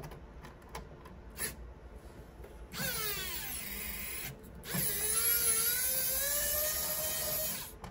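Electric precision screwdriver motor running twice, about 1.5 s and then about 3 s, to remove the screws holding the printer's kicker and wiper. Each run's whine drops in pitch as it starts, and the second climbs slowly while it runs. A few faint clicks come before the first run.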